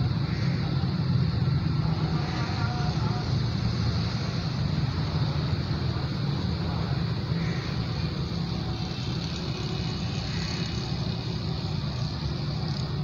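Steady low engine rumble, easing slightly in level over the seconds, with a hiss above it.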